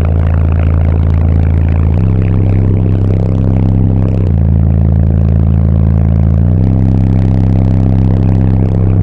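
Car audio subwoofers playing a deep bassline at very high volume, the bass note stepping to a new pitch about every two seconds, with a buzzy, distorted edge.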